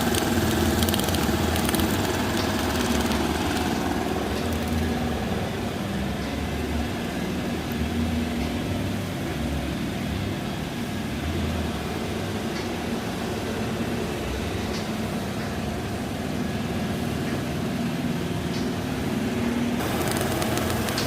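Steady low hum of TIP TIG welding equipment running, with a hissy upper layer that fades about four seconds in and returns near the end.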